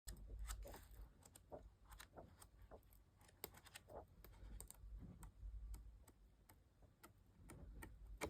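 Faint handling sounds of a new paperback colouring book being leafed through: scattered soft clicks and paper flicks as its pages are turned.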